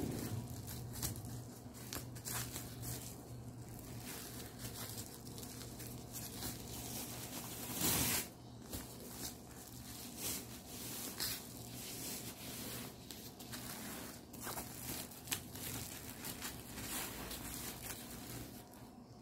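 Black bubble wrap crinkling and rustling as it is folded and pressed around a cardboard box, with many small crackles and a louder brief rip about eight seconds in.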